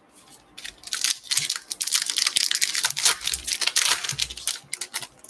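A foil trading-card pack being torn open by hand: dense crinkling and tearing of the wrapper from about a second in until near the end.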